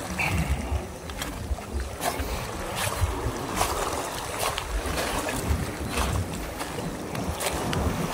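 Wind buffeting the microphone in a low rumble, over the wash of calm sea water at a rocky shore, with a few short sharp clicks scattered through.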